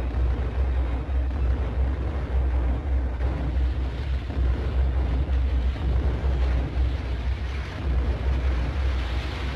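A steady low rumble with a rough hiss over it, starting abruptly and holding at an even level without breaks.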